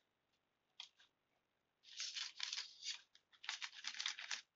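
Paper hand puppet being handled close to the microphone: stiff paper rustling and crinkling in quick short strokes, in two spells of about a second each, after one faint tick.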